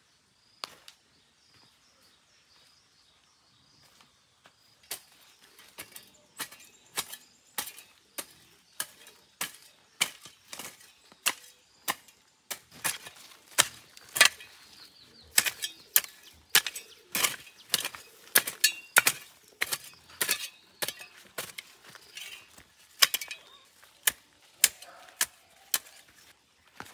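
A long run of sharp knocks and snaps. They are sparse at first and, from about five seconds in, come irregularly at one to two a second.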